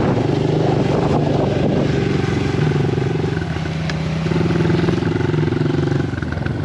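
Small dirt bike engine running at a steady throttle, easing off briefly around the middle and picking up again.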